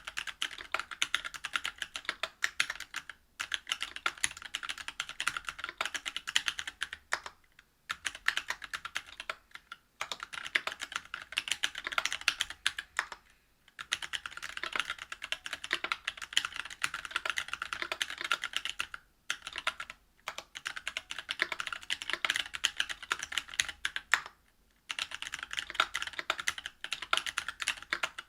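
Continuous fast typing on a Whale 75 mechanical keyboard with stock Cannonkeys Lilac Tactile 65g switches in a brass plate under GMK doubleshot ABS keycaps: dense runs of sharp keystroke clicks, broken by several brief pauses.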